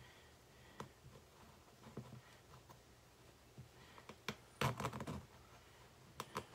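Razor blade cutting into a sheet by hand: faint, scattered clicks and scratches, a small cluster of them about two-thirds of the way through and a sharper click at the end.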